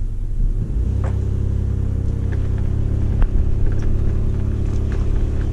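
Third-generation Toyota 4Runner's engine pulling steadily under light load, heard from inside the cab as the truck drives up a dirt road. The engine note firms up about a second in, with a few light clicks and rattles over it.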